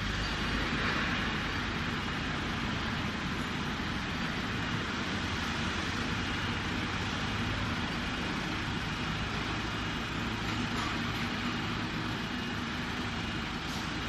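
Tracked skid steer loader's diesel engine running steadily while its hydraulic lift arms move.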